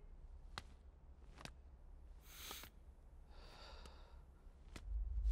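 A few soft, widely spaced footsteps and two breathy exhales from a person creeping through a quiet room. A low rumble swells in near the end.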